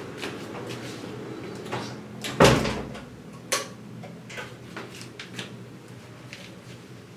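A bathroom door being pushed shut, closing with a thud about two and a half seconds in, with a sharp click of the latch a second later. Smaller knocks and clicks from the handle and from clothes being handled run around it.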